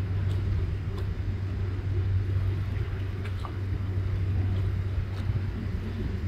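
Steady low engine rumble with an even hum, as from a motor running close by.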